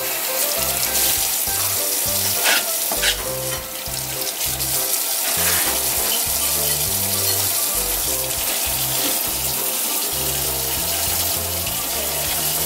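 Tap water running steadily into a stainless steel sink, hissing and splashing, with background music underneath. Two brief knocks a few seconds in.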